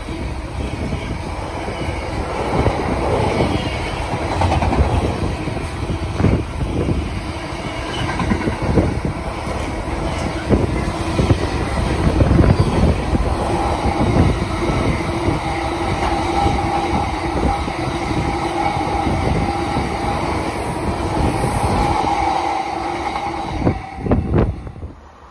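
Container wagons of a fast intermodal freight train passing close by: a loud rumble of wheels on rail, with repeated clattering knocks. A steady whine joins in the second half. The sound falls away abruptly near the end as the last wagon passes.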